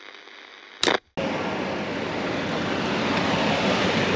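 Electronic static hiss of a glitch transition effect: a short crackle about a second in, a brief dropout to silence, then a loud steady hiss.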